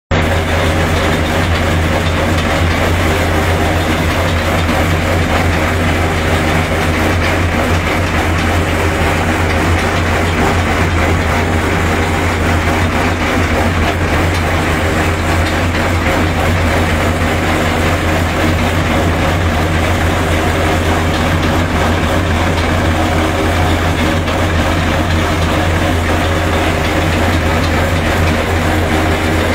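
Tractor-driven groundnut shelling machine (decorticator) running steadily while pods are fed into it, the tractor's engine driving it: a constant deep hum under a steady noisy whir.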